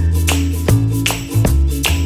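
Background music: sustained bass and melody notes over a steady beat.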